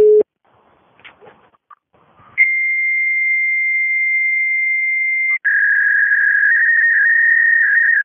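Fax line signalling: a brief low beep, then, about two seconds in, a steady high fax answer tone lasting about three seconds. It is followed by a warbling modem handshake that flips between two close pitches over a hiss: a fax machine answering the call and starting its handshake.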